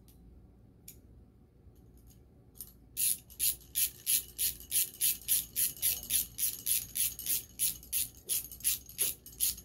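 Hand ratchet with a 3/8-inch socket clicking as its handle is swung back and forth to run down a 10-24 lock nut. A few faint clicks at first, then a steady run of sharp clicks, about three a second, from about three seconds in.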